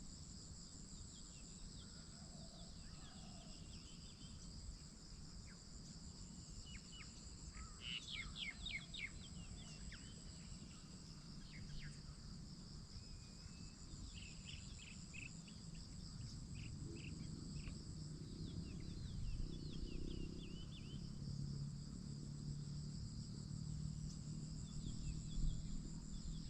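Outdoor morning ambience: insects trill steadily in two high-pitched bands, with bursts of short, quick bird chirps over them at intervals.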